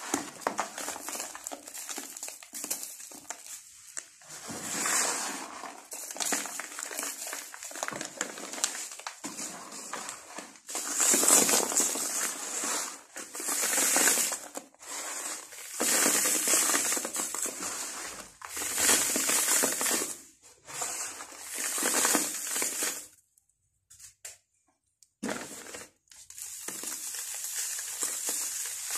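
Dry sand-cement dirt crushed and crumbled by hand, a gritty crackling in repeated strokes. It is loudest in a run of strokes through the middle, stops for about two seconds some two-thirds through, and goes on as softer rubbing.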